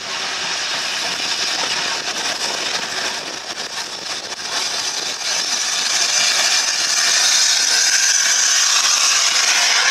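LNER Class A4 steam locomotive No. 4464 passing along the line, a steady rushing hiss of steam and train noise that grows louder from about halfway through.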